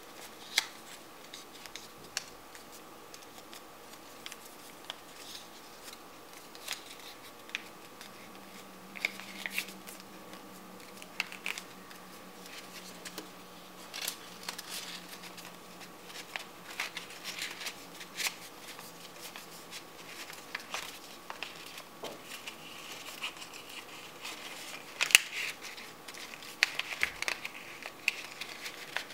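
Strips of folded paper rustling and crinkling as they are creased and fitted together, with irregular crisp clicks and crackles; a sharp crackle near the end is the loudest.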